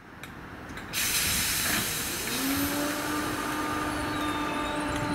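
Merseyrail Class 507 electric train standing at the platform: a loud hiss starts suddenly about a second in, and soon after a hum rises slightly in pitch and settles into a steady tone.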